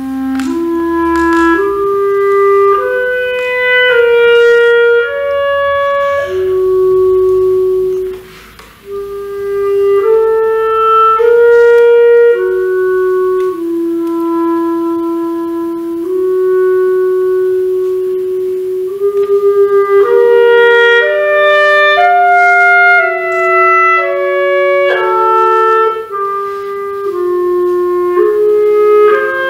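Two clarinets playing classical chamber music: a stepwise melody of clear held notes, breaking off briefly about eight seconds in, then a long low held note and a quick trill, after which a second voice plays above a held lower note.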